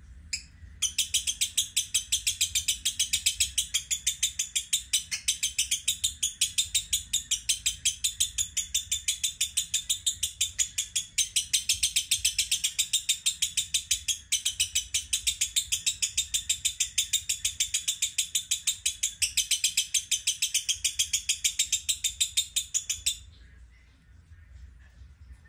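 Masked lovebird chattering: a long unbroken string of rapid, high-pitched chirps, about five a second, starting about a second in and cutting off suddenly near the end.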